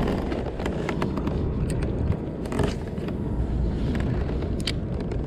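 Wind buffeting the microphone with a rough, steady rumble, broken by scattered small clicks and taps.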